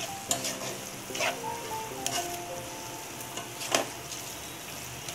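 A spatula scraping and knocking in a non-stick kadai as soya chunks and vegetables are stir-fried, over a light sizzle. There are several sharp scrapes, the loudest nearly four seconds in. Soft background music with a simple melody plays underneath.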